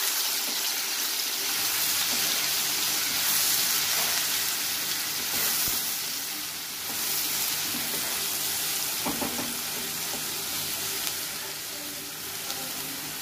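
Crushed ginger and garlic frying in a little hot oil in a kadhai, a steady sizzle.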